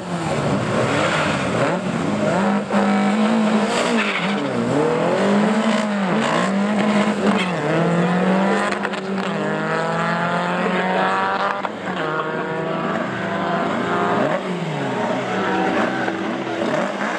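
Two drag-race VW Beetles, their air-cooled flat-four engines revving hard as they launch and accelerate away down the strip, the engine pitch climbing and dropping again and again.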